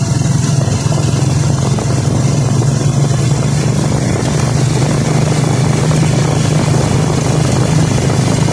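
Motorcycle engine running steadily while riding at an even speed, with wind rushing over the microphone.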